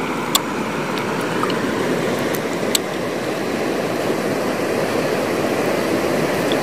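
Steady wash of sea surf breaking on the shore, with two small sharp clicks, one near the start and one about three seconds in.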